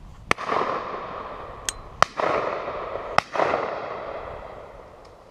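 Shotgun shots: three loud reports about a second or two apart, each followed by a long rolling echo, with a fainter distant shot between the first two.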